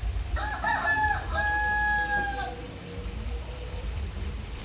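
A rooster crowing once: a few short broken notes, then a long held final note, about two seconds in all.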